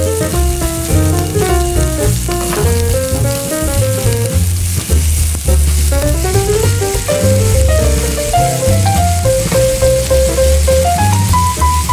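Cubes of beef sizzling as they sear in a hot pan, a steady frying hiss, under background music with a melody and a pulsing bass line.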